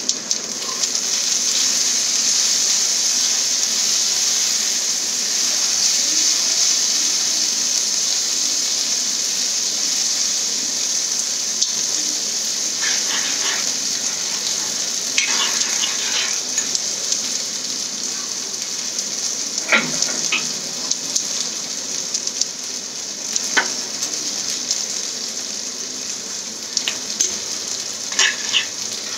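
Onion-and-spice masala paste sizzling steadily in a kadai after water has been added to keep it from burning, easing slightly over time. A metal spoon stirs it, clinking and scraping against the pan a few times in the second half.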